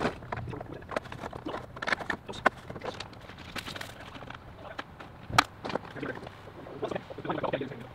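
Heavy triplex service cable being hauled by hand out of a buried conduit and looped into coils: scraping and rustling with irregular knocks and slaps, the sharpest about five and a half seconds in.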